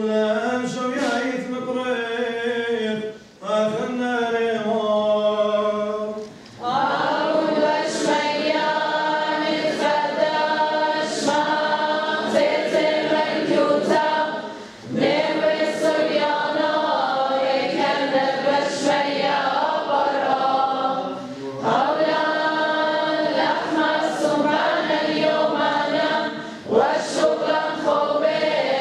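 Syriac liturgical chant sung unaccompanied. One voice chants alone for the first few seconds, then from about six seconds in a group of voices takes up the chant. It goes in phrases with short breaks between them.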